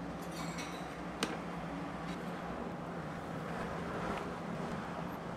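Steady background hum and hiss, with one sharp click about a second in that fits wooden chopsticks being set down on a wooden cutting board.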